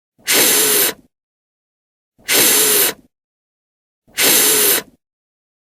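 A voice sounding the voiceless /f/ consonant on its own, a long unvoiced 'fff' hiss, three times, each lasting under a second with a pause of about a second between.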